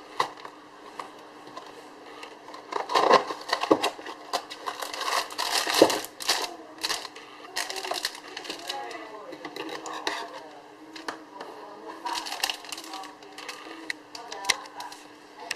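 Ice cream packaging being handled: irregular clicks, taps and rustles, louder around three and six seconds in, over a faint steady hum, with muffled voice-like sounds in the background.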